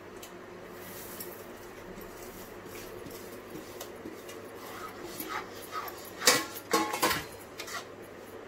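Makhana and dry fruits tipped from a steel plate and stirred with a spatula into thick sugar syrup in a steel kadai. A few short, loud, high-pitched sounds come about six to seven seconds in.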